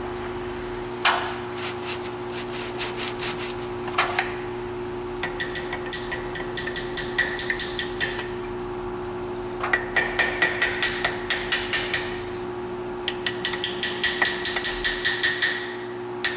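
A small hammer tapping a metal part on a Subaru EJ253 cylinder head to crack it loose from a hollow locating dowel. The blows come in several runs of quick, light taps, about six a second, each with a high metallic ring, after a few single knocks at the start.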